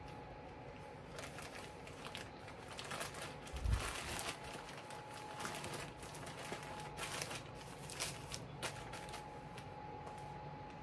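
Satin shower cap rustling and crinkling softly as it is pulled on and adjusted on the head, with scattered small clicks and one dull thump about four seconds in.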